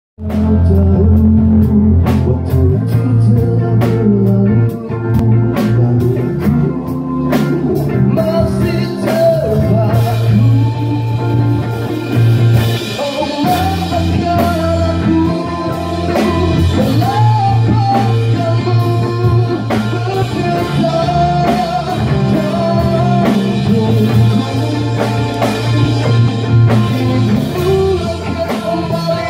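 Live rock band playing: a male singer over electric guitar, bass guitar and drum kit, with the vocal line coming through clearly from about nine seconds in.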